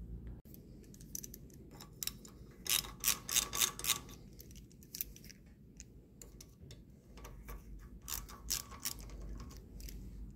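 Small metal clicks and clinks of a hand tool working on a small Briggs & Stratton engine's crankcase, in two quick clusters, about three seconds in and again about eight seconds in, over a low steady hum.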